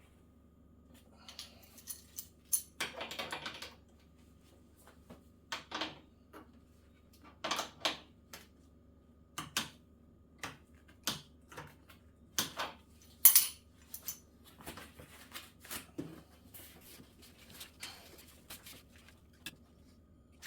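Irregular small clicks and knocks of hand tools and metal parts being handled, with a brief rattling clatter about three seconds in and one sharper click near the middle, over a faint steady hum.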